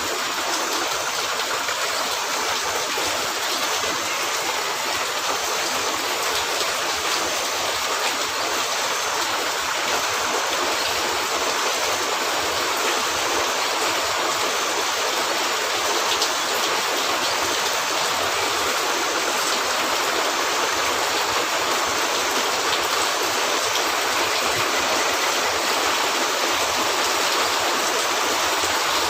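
Steady rain, an even hiss of falling water that holds at the same level throughout.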